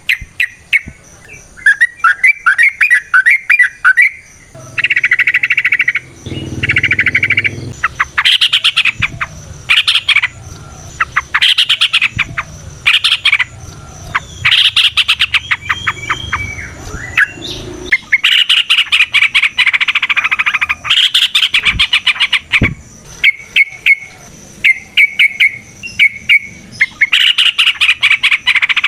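Yellow-vented bulbul (trucukan) singing: loud, quick bursts of bubbly, chattering notes, one phrase after another with short pauses between, as in the long 'ropel' song used to lure and set off other bulbuls.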